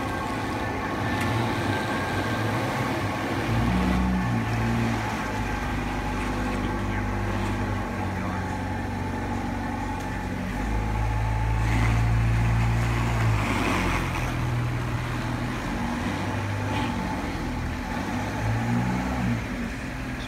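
Fiat 124 Spider Abarth's turbocharged 1.4-litre four-cylinder idling after a cold start, its note swelling and easing a few times.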